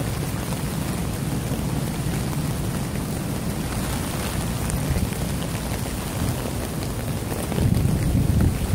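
Rain falling on a tarp shelter in a storm, over a low gusty rumble of wind that swells near the end.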